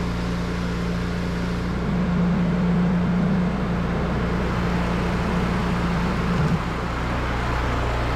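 Pressure washer's engine and pump running steadily while the water jet sprays with a steady hiss; the engine hum strengthens about two seconds in and eases back about six and a half seconds in.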